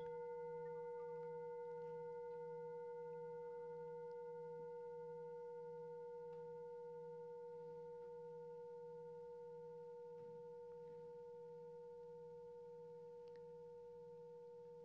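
A single held musical tone with a few clear overtones, ringing on and fading slowly and evenly.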